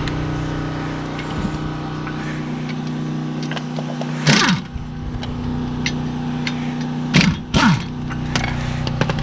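A steady mechanical hum, with short bursts of hand-tool noise about four seconds in and again around seven seconds in, as the brake caliper's bolts are being worked on.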